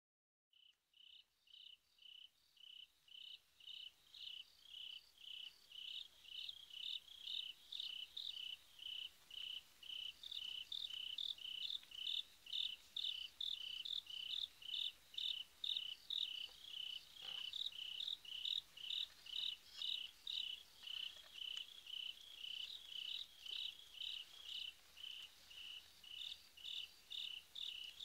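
Cricket chirping: a high, even chirp repeated about twice a second, fading in over the first few seconds and then holding steady.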